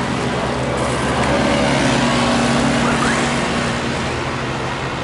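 Loud steady rumble and hiss of street noise, with an engine-like hum in the middle.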